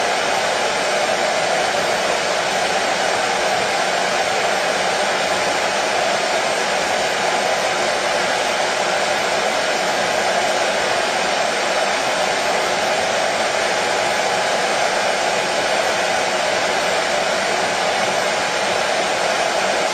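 Electric hair dryer running steadily: an even rush of blown air over the motor's hum, with no change in pitch or loudness.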